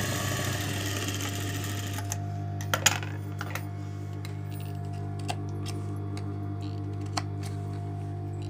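Industrial sewing machine stitching for about the first two seconds, then stopping. A steady low hum carries on, with a few sharp clicks afterward, the loudest about three seconds in.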